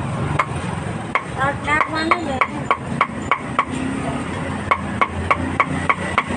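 Cleaver chopping meat on a chopping block: sharp, regular strokes about three a second, with a short pause around the middle.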